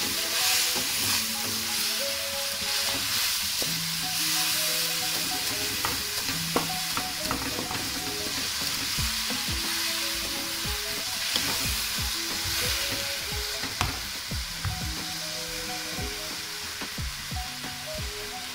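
Vermicelli sizzling in hot ghee and water in a nonstick pan as it is stirred, with a steady hiss and the scrapes and light knocks of a wooden spatula against the pan. A soft background melody plays underneath.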